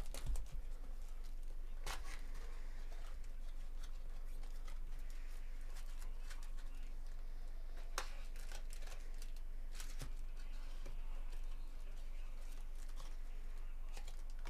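A cardboard trading-card hobby box being torn open by hand and its packs pulled out: sharp cardboard snaps and tearing a few times, with crinkling of packaging in between.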